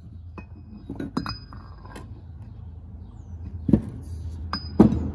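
PBR disc brake caliper parts, the aluminium body and its cast-iron bracket, clinking and knocking together as they are handled, about eight sharp knocks, two of them ringing briefly.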